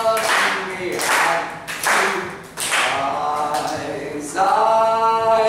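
A group of children singing along with a male performer in a children's action song, with scattered claps and hand noises and a long held note near the end.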